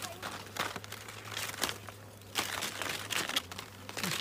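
Irregular rustling and crackling, a string of sharp crinkles and crunches at uneven intervals.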